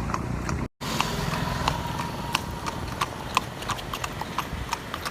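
A horse's hooves clip-clopping at a walk, a few sharp hoofbeats a second, as it pulls a horse cart, over the cart's low steady rumble. The sound cuts out completely for a moment under a second in.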